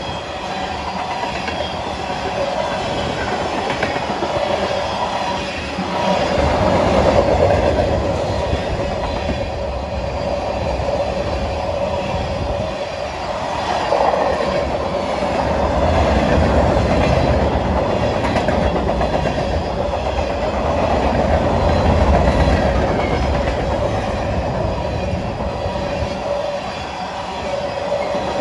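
Freight train cars (tank cars, hoppers and boxcars) rolling past close by: steel wheels rumbling and clacking over the rail joints, with a steady tone running through it. The loudness swells and eases several times as cars go by.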